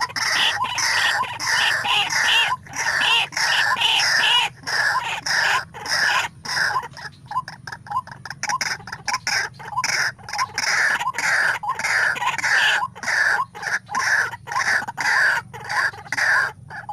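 White-breasted waterhen calling: a loud, unbroken series of harsh repeated calls, about two or three a second.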